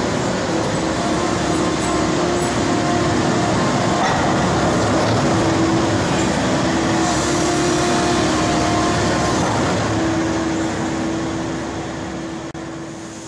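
Volvo ECR58D compact excavator running and travelling along rails on a wheeled railroad skateboard: steady engine and machine noise with a whining tone that comes and goes. The level falls off near the end.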